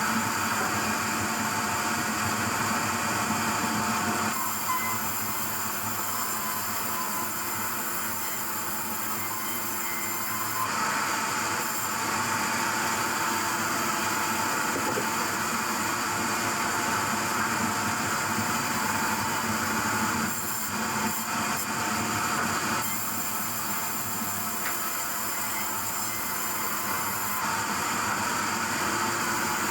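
Sawmill machinery running: a steady, dense mechanical noise that changes abruptly several times.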